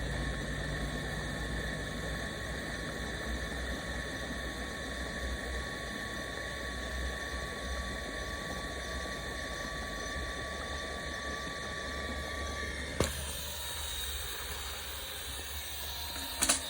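Cordless vacuum cleaner motor running with a steady airy hiss and a thin high whine. About thirteen seconds in there is a sharp click and the whine stops. Another sharp click comes near the end.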